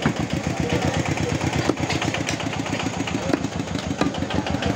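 A small engine idling steadily close by with a rapid, even beat, over which a butcher's cleaver chops into beef on a wooden block a few times, each chop a sharp knock.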